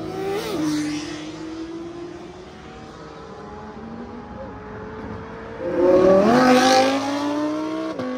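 Car engines accelerating along the road, their pitch climbing steadily. The loudest comes about six seconds in, and the pitch drops suddenly near the end.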